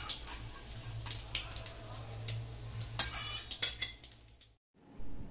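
Hot oil sizzling in a steel kadai as fried chicken cutlets are lifted out with a metal slotted spatula, the spatula scraping and clinking against the pan, with one sharp clink about three seconds in. The sound drops out briefly near the end.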